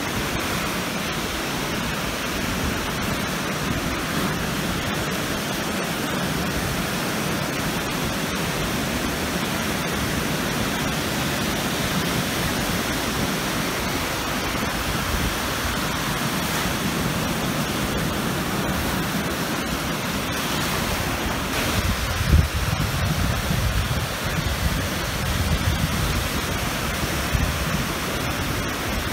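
Lake Huron waves breaking and washing up the shore in a steady rush of surf. A stretch of low rumbling with a sharp peak comes about three-quarters of the way through.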